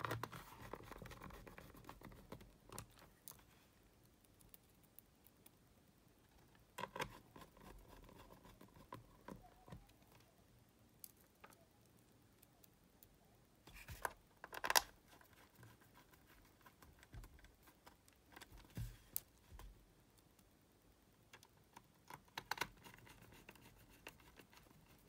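A small precision screwdriver driving screws into the plastic bottom case of a Sony Discman D311 portable CD player, with faint scratching and scattered clicks and knocks as the player is handled; the loudest are two clicks about 14 to 15 seconds in.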